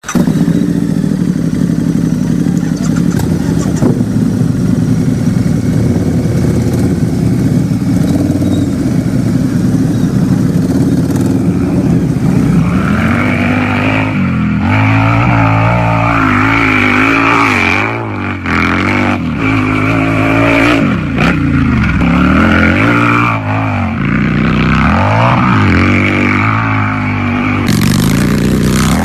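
Harley-Davidson V-twin motorcycle engine idling steadily, then revved again and again from about twelve seconds in, its pitch rising and falling with each blip of the throttle.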